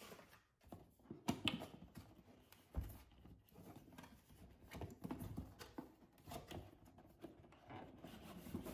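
Paper leaflets and cardboard packaging being handled: faint rustling and scraping with scattered light knocks and a low thump about three seconds in.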